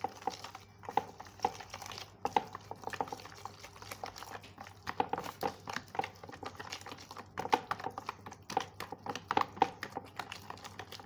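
Hand whisk beating a thick, wet batter in a plastic bowl: an irregular run of clicks and taps against the bowl with wet slapping of the batter.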